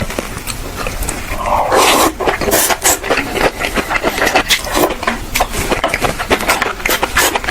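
Close-miked eating: chewing and munching with a rapid, irregular run of crisp crunches and wet mouth clicks, with a louder burst about two seconds in.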